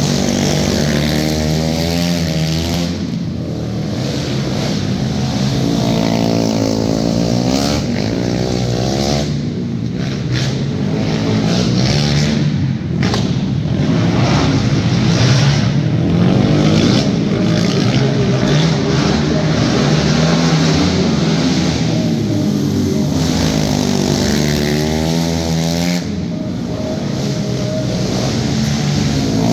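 Several racing quads (sport ATVs) lapping a dirt track. Their engines repeatedly rev up and drop off through the turns, and several run at once with overlapping pitches.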